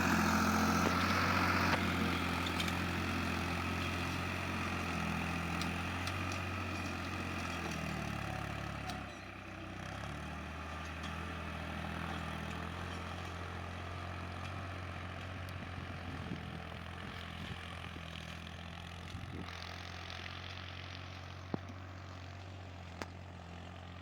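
Tractor engine running steadily, its note shifting and its level briefly dropping about nine seconds in, then gradually growing fainter.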